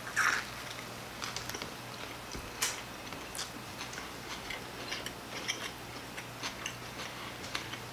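Two people biting into and chewing plant-based burgers: faint, irregular mouth clicks and smacks, with a brief louder sound right at the start.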